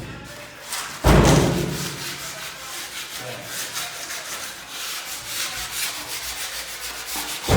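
Sandpaper rubbed back and forth by hand in quick, repeated scratchy strokes, smoothing a surface before painting. A loud thump comes about a second in.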